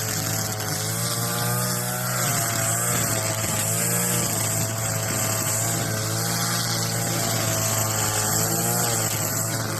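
Gas string trimmer (weed eater) running, its small engine speed wavering up and down as it cuts weeds.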